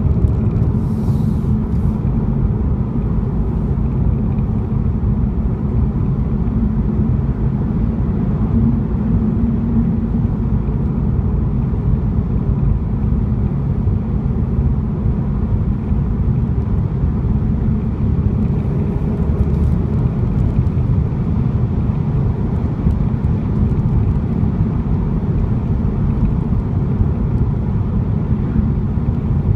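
2015 VW GTI Mk7 running, a steady low rumble of car noise with no distinct event standing out.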